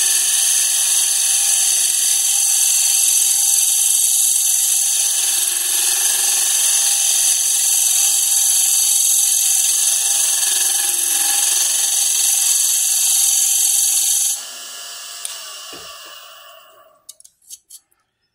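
Hunter No. 5 cupped carbide tool shear-scraping end grain inside a spinning wooden box on a lathe: a steady high hiss of cutting over the lathe's running whine, a light finishing cut to clean up tear-out. About fourteen seconds in the sound drops suddenly and fades away over the next few seconds as the lathe winds down, and a few light clicks follow near the end.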